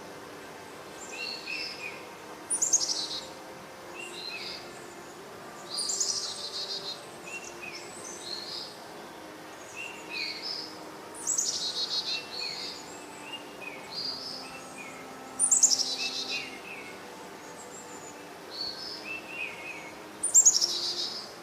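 Birds singing: one loud, descending trilled phrase repeats about every four to five seconds, with softer short chirps in between.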